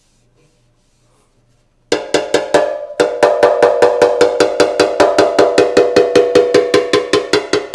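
Rapid, even metallic tapping on a steel motorcycle gas tank, about five strikes a second, each ringing like a cowbell, starting suddenly about two seconds in: tapping down a high spot during paintless dent repair.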